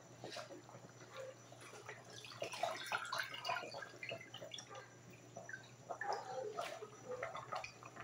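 Pork bulanglang broth boiling in a stainless steel pot, with small irregular bubbling pops and gurgles over a steady low hum.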